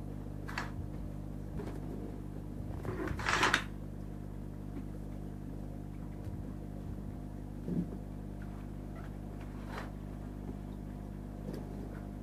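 Steady low hum of aquarium equipment such as the tank's pumps, with a few brief noises over it, the loudest about three and a half seconds in.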